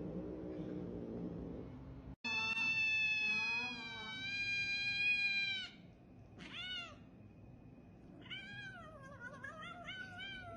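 Domestic cat meowing: a long drawn-out meow, then a short one, then a wavering one. Before these there is a lower, drawn-out cat cry.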